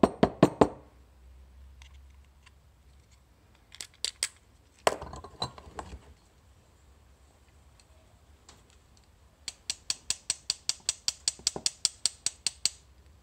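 Small metal clicks and taps from a Breville BES860 two-way solenoid valve being handled and worked with pliers to free its plunger: a few sharp taps at the start and about five seconds in, then a fast, even run of about twenty clicks, some seven a second, for about three seconds near the end.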